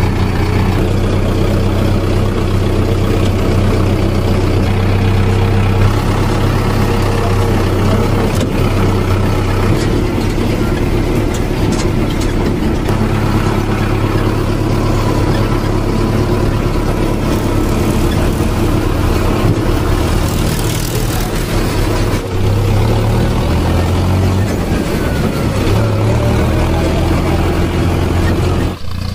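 A tractor engine running steadily, its sound deep and even, with a brief drop-out about 22 seconds in.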